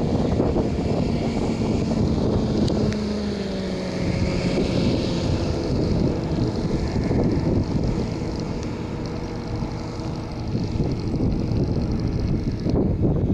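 Hovercraft's engine and air propeller running as the craft skims across the water, its note dropping slightly a few seconds in, with wind noise on the microphone.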